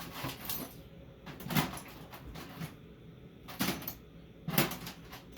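Hand tools and metal parts being handled: four sharper knocks and clanks spread about a second apart, with fainter clicks between them.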